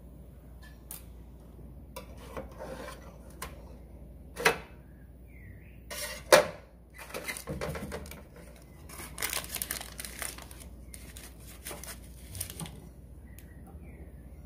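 Small metal tart pans being handled on an aluminium sheet pan as baked mini tarts are lifted out: clinks and scraping, with two sharp knocks about four and six seconds in, the loudest sounds.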